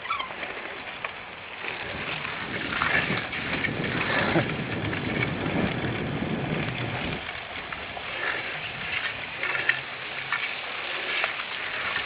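Cyclocross bike ridden hard over a rough race course: a steady rush of tyre and riding noise with scattered clicks and rattles from the bike.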